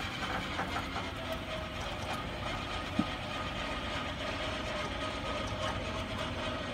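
Vehicle winch hauling under load, its motor whining steadily as the line pulls a rolled-over truck upright, with one sharp knock about three seconds in.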